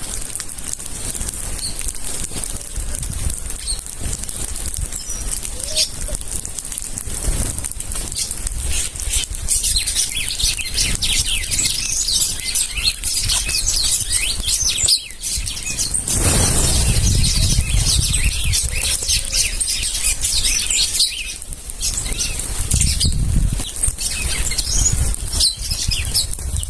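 A feeding flock of birds chirping, with wings flapping. The short, high chirps grow busier about a third of the way in, and there are low surges of flapping noise near the middle and near the end.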